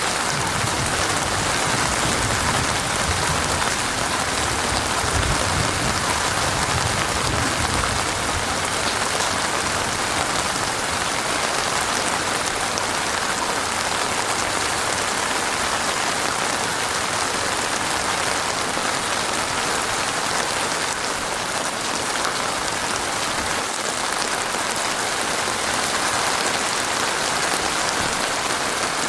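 Heavy rain falling steadily in a dense, even downpour, with a low rumble underneath during the first several seconds.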